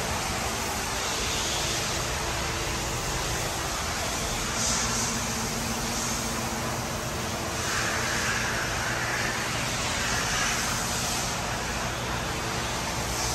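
Steady workshop background noise: a constant low machine hum under a broad hiss, with no clear changes.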